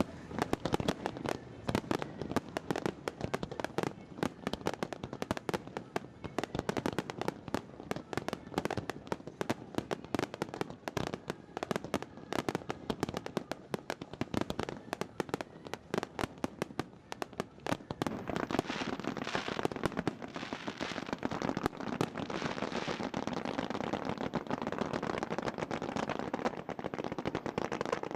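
Aerial fireworks crackling: a dense, rapid stream of sharp pops and cracks. About two-thirds of the way in it thickens into an almost continuous crackle.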